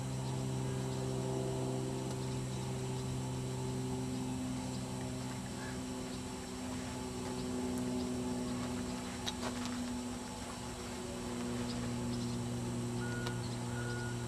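A steady low mechanical hum, like an engine or motor running. Near the end, a series of short, evenly spaced high beeps starts up.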